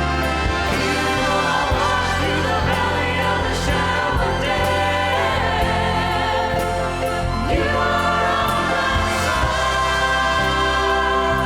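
Church choir singing with orchestral accompaniment: a sustained gospel worship song, with a chord change about seven and a half seconds in.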